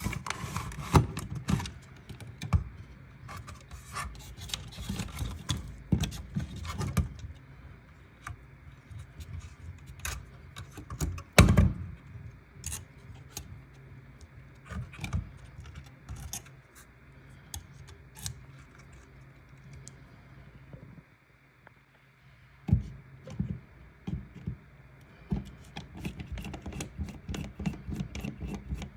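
Irregular clicks, taps and scrapes of small hard objects being handled, over a steady low hum. A sharper knock comes about eleven seconds in, and there is a short lull a little after twenty seconds.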